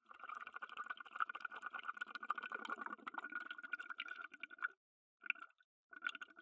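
Underwater ambience from a submerged camera: faint crackling and bubbling over a steady high whine, cutting out briefly twice near the end.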